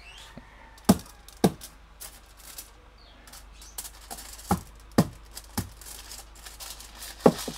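A hand-held garlic stone knocking down onto garlic cloves on a foil wrapper to crush them: about six sharp knocks, irregularly spaced, with fainter crackling and crinkling between.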